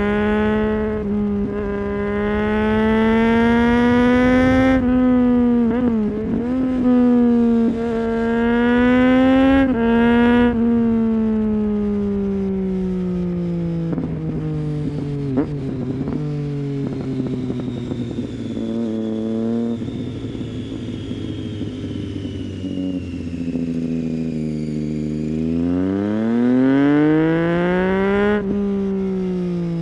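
Triumph Street Triple 675's inline-three through a Leovince GP 3-2 aftermarket exhaust with dB-killer, heard from the rider's seat: the revs climb with brief dips at two gear changes, then fall away for several seconds as the throttle closes. Near the end the revs build again and drop at another shift.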